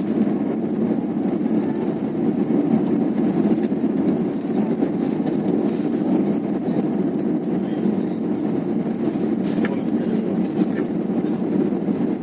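Steady low rumble of an airliner landing, an even noise with no clear tone.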